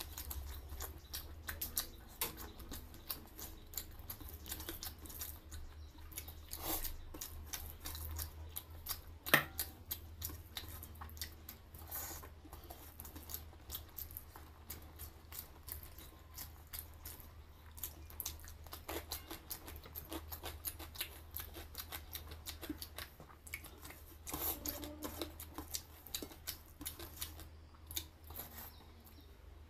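Eating with the hand from a stainless steel plate: fingers squishing and scraping sticky rice on the metal, a steady stream of small clicks and wet crackles, with one sharper click about nine seconds in.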